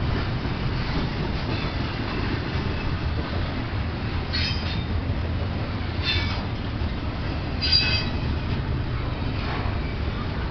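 Freight train of double-stack intermodal well cars rolling past with a steady low rumble of wheels on rail. Three short, high wheel squeals come in the middle, about a second and a half apart.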